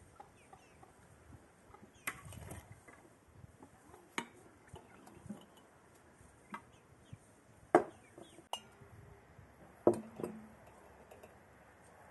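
Glass jar and metal bowls clinking and knocking on a wooden table as quince slices are handled and put into the jar. The sharp clinks come at irregular intervals, the loudest about eight and ten seconds in.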